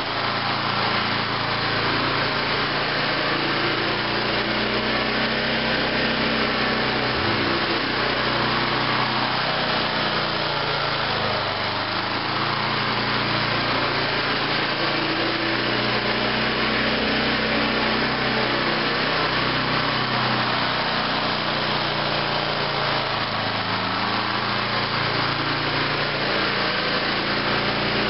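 Riding lawn mower's engine running at a steady speed as the mower drives across bare dirt.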